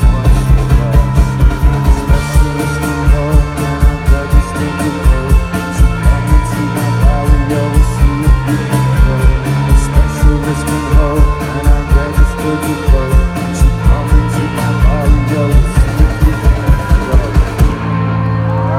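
Rock band playing live through a PA, with electric guitars over a steady driving kick-drum beat. Near the end the drums stop and a chord is left ringing.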